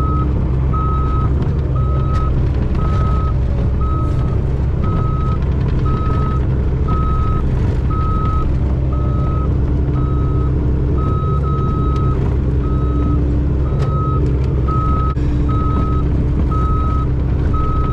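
Mini excavator's travel alarm beeping about once a second, one steady high tone, over its engine running steadily.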